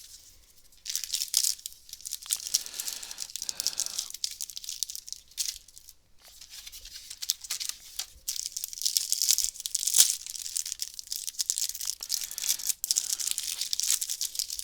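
Crinkly trading-card booster pack wrapper being torn open and handled, a dense crackling that starts about a second in, eases off briefly in the middle and picks up again.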